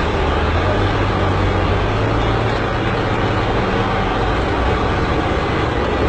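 Heavy diesel engines of bulldozers running steadily, a low hum under a constant rushing noise.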